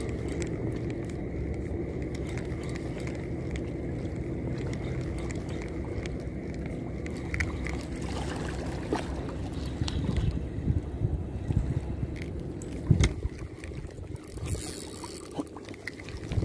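Steady low rumble of water and wind at a rocky shoreline, with a few sharp clicks and a brief hiss near the end.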